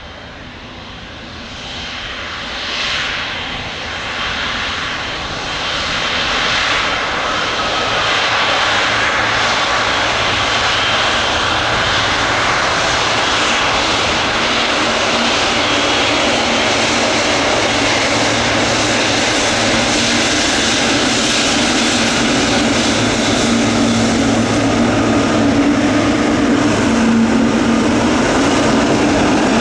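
Jet airliner's engines growing louder over the first several seconds as the aircraft comes closer, then a loud, steady engine noise with a low hum that strengthens near the end.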